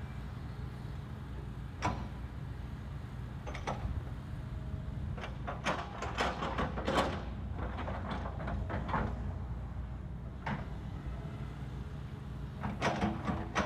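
Hitachi hydraulic excavator's engine running with a steady low drone while the bucket works the soil, giving scattered clanks and scrapes, thickest in a cluster about six to seven seconds in and again near the end.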